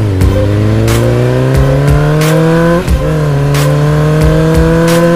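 Motorcycle engine accelerating hard. The pitch climbs steadily, drops briefly at a gear change about three seconds in, then climbs again.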